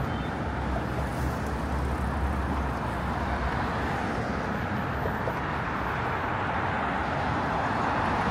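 Steady road traffic noise, the rush of passing cars, with a deeper engine rumble during the first three seconds.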